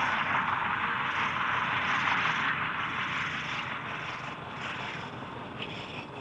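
Vintage open touring car driving along, its engine and road noise heard as a dense, hissy sound on an old film soundtrack, loudest in the first half and slowly easing off.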